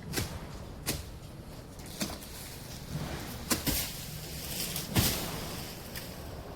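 A series of about six sharp knocks at irregular intervals over a steady low background rumble; the loudest comes about five seconds in.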